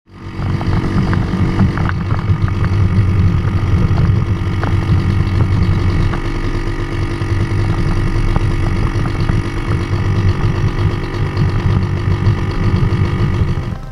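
Baja 90 ATV's 90cc engine running under way at a steady pitch with its rev limiter enabled, holding the quad at its top speed of about 24 km/h.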